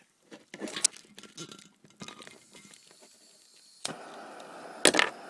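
Small handheld gas torch being handled with clicks and rattles, then about four seconds in a sharp click as it lights and the steady hiss of its small blue flame, with a loud clack near the end.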